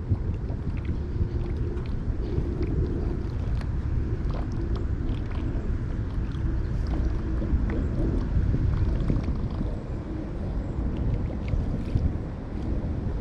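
Water sloshing and splashing around legs wading through a shallow river, with wind rumbling on the microphone.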